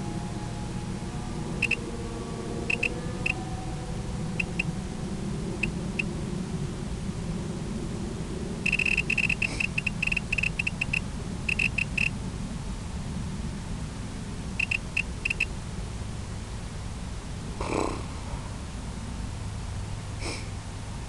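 Short, high electronic beeps, some single and some in quick runs, with a long rapid run about nine to twelve seconds in, over a steady low rumble.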